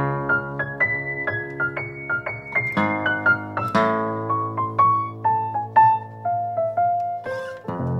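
Background music: a keyboard melody of separate notes, a few a second, stepping mostly downward over a held low chord, with a new chord coming in near the end.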